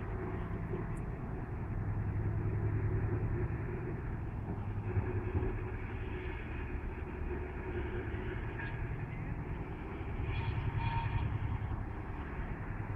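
Freight train at a distance, a low steady rumble with a pulsing undertone that swells a little twice. A brief faint high squeal comes about ten seconds in.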